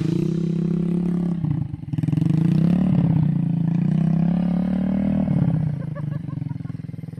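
Small custom flat-track motorcycle engine revving hard while the rear tyre spins in wet mud. The revs drop briefly about a second and a half in, climb again and hold, then ease off and fade near the end.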